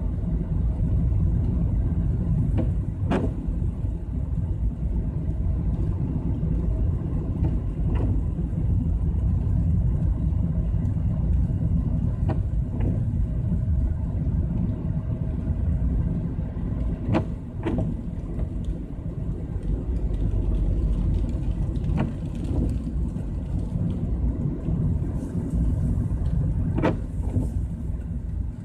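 Car interior noise while driving on a wet road: a steady low rumble of engine and tyres, with a few faint knocks every few seconds.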